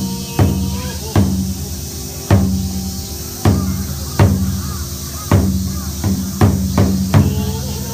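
Large barrel-shaped taiko drum on a tall stand struck with wooden sticks in slow, widely spaced single strokes, each a deep boom that rings on and fades. There are about nine strokes, with a quicker run of three near the end.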